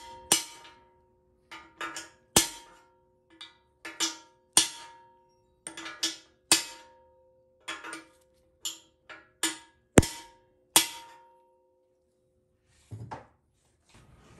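Hammer blows on a bushing driver, driving a new rear bushing into a GM TH400 transmission case: about twenty sharp metal knocks, irregularly spaced, each leaving a short ringing tone, stopping about eleven seconds in. The bushing is being driven slightly beyond flush with the bore.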